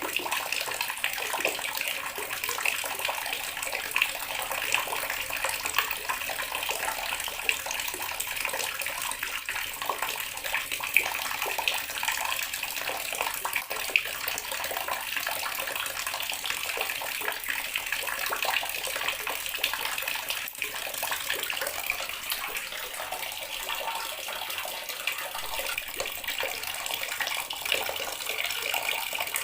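Water running steadily from a tap and splashing, with a few brief louder splashes.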